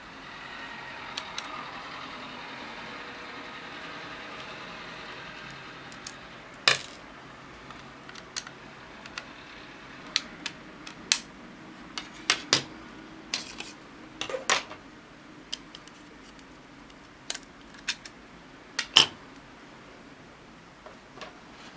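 Scattered sharp clicks and clinks of small plastic and metal parts (screws and case panels) being handled as a mini satellite receiver is taken apart. A steady hiss runs for the first few seconds.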